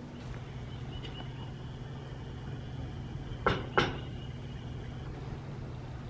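Two sharp knocks about a third of a second apart, a little past halfway, over a steady low hum.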